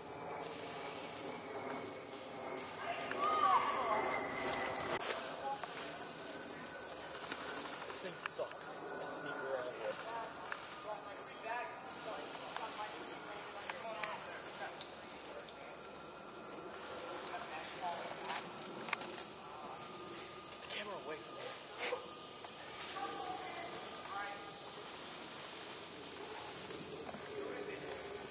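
Insects trilling in a continuous, steady high-pitched drone, with a faint pulsing chirp in the first few seconds.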